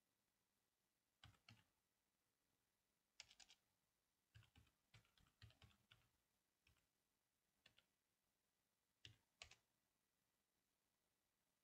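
Faint typing on a computer keyboard in short bursts of keystrokes with pauses between them. There is a quick run of keys in the middle and two last strokes near the end.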